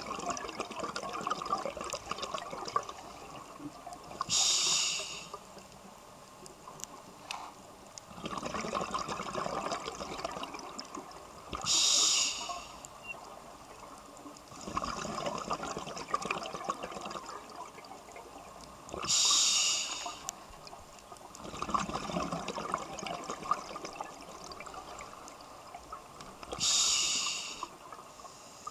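A scuba diver breathing through a regulator, heard underwater: a short hiss about every seven and a half seconds, four times, alternating with longer stretches of bubbling and crackling as the bubbles rise.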